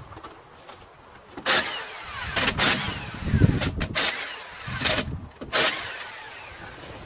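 Several short, sharp bursts of an impact wrench working the lug nuts on a Honda Acty's rear wheel.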